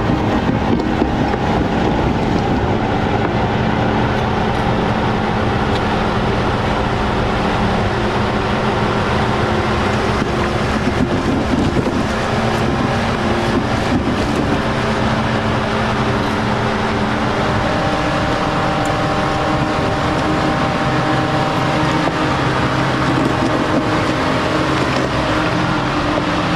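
Jeep Grand Cherokee Trailhawk engine running steadily at low revs as it crawls along a rocky off-road trail, with a few short knocks around the middle.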